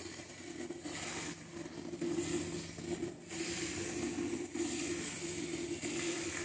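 Jets of milk hissing into a part-filled aluminium pail as a Murrah water buffalo is hand-milked, coming in rhythmic spurts about once a second. A steady low hum runs underneath.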